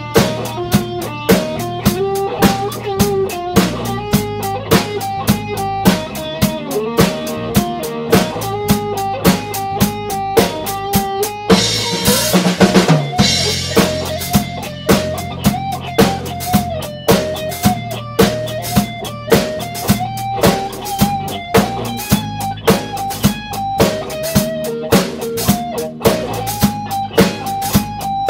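Instrumental rock band playing live: a lead electric guitar melody over electric bass and a drum kit keeping a steady beat. About twelve seconds in, a cymbal crash washes over the beat.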